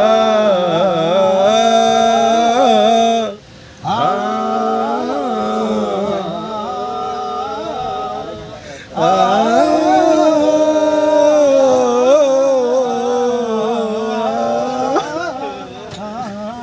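A man singing a Hindi film wedding song, holding long wavering vowel notes in three drawn-out phrases, with short breaks about three and a half and nine seconds in.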